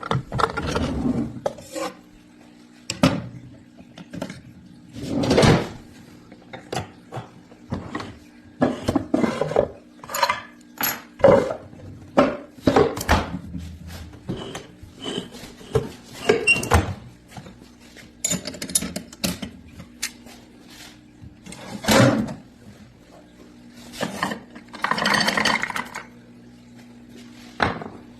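Irregular knocks, clatters and short scraping sounds of hard objects being handled, over a steady low hum.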